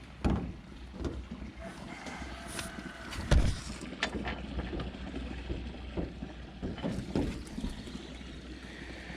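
Handling noises of a rubber gasket and plastic pool return fitting being worked into place by hand: scattered light knocks and rubs, with one louder thump about three seconds in, over a steady low rumble.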